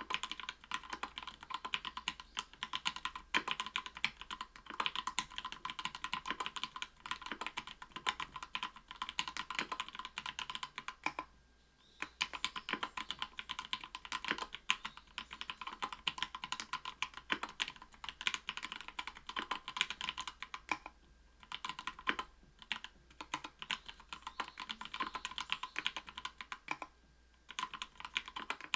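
Continuous fast typing on a mechanical keyboard with lubed SP-Star Polaris Gray 67g linear switches in an aluminium-plate Octagon V3 case, under Cherry-profile PBT keycaps; dense clacking keystrokes with a few brief pauses, about a third of the way in and again near the end.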